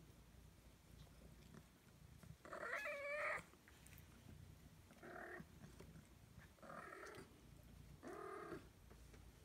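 Ragdoll kitten mewing four times. The first call, about two and a half seconds in, is the longest and loudest; the three that follow are shorter and softer.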